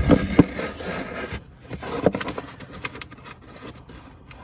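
Hand rummaging inside a car's plastic airbox: plastic scraping and rubbing, with a few sharp knocks near the start and another about two seconds in.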